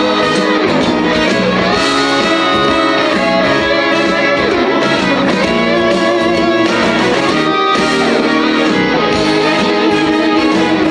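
Instrumental break of a trot song played by the backing band, with no singing.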